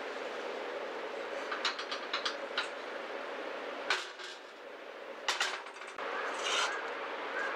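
Joylife two-burner gas camp stove burner running with a steady rush, with a few metallic clicks and knocks of the knob and pot. About four seconds in the burner is shut off with a click and the rush drops away, then the pot clinks as it is lifted off the grate; near the end a steady rush returns with a frying pan being moved on the stove.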